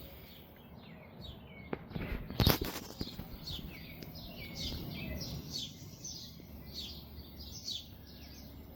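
Small birds chirping in a quick run of short falling notes, with a sharp click and then a brief clatter of knocks about two seconds in, the loudest sounds.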